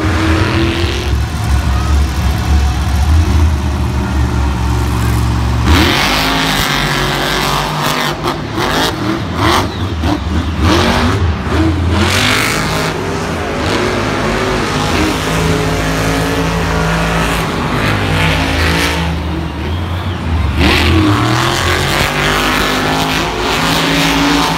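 Monster truck engines, supercharged big-block V8s, running loud and revving hard, the engine note climbing and dropping again and again.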